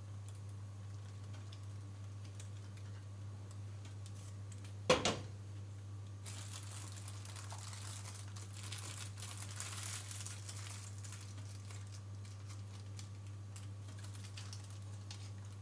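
A metal pot set down with a single sharp knock about five seconds in, then several seconds of plastic sheeting crinkling as the lining of a tray mold is handled. A steady low hum runs underneath.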